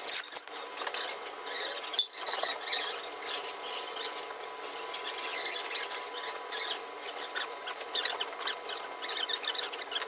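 Hand wiping chalk paint off window glass: irregular squeaks and rubbing on the pane, with one sharp knock about two seconds in.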